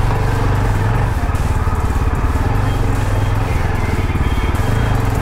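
Yezdi Adventure's 334 cc single-cylinder engine running steadily at idle while the bike waits at a red light.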